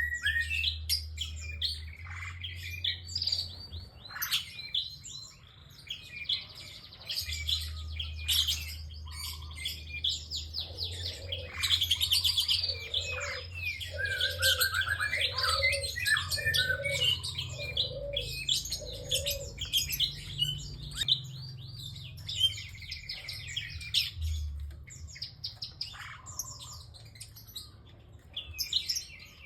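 Prinia (prenjak) singing persistently: fast, high chirps and rattling trills, dense and almost without pause, with a short run of about six lower repeated notes in the middle.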